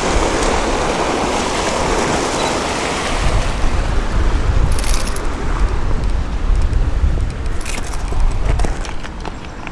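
Creek water rushing over a cascade, a steady rushing noise, joined from about three seconds in by a heavy low rumble on the microphone. A few sharp clicks sit on top.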